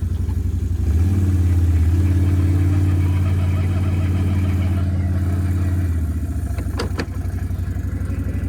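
Vehicle engine idling, then revved up about a second in and held at higher revs for about five seconds as it pulls away, before dropping back to idle. A couple of sharp clicks come near the end.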